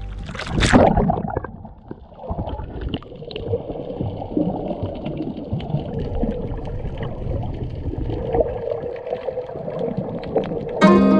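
A splash as a submerged camera dips under the sea surface, then muffled underwater sound: a low rumbling wash of water with scattered faint clicks.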